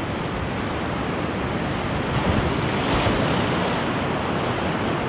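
Sea surf washing against shoreline rocks, a steady rush that swells briefly about three seconds in, with wind on the microphone.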